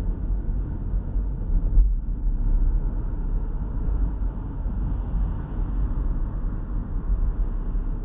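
Car driving on a city street, heard from inside the cabin: a steady low rumble of road and engine noise.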